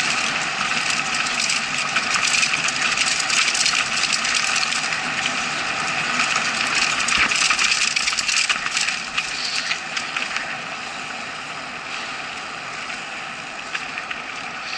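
Mountain bike riding fast down a dirt forest trail: a dense rattle of clicks and knocks over steady tyre noise. Loudest during the fastest stretch, then easing off about nine seconds in as the bike slows.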